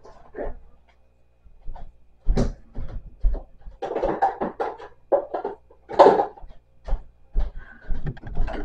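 Irregular rustling, knocks and clatter of a cardboard box and its packaging being handled and opened, louder after the first couple of seconds.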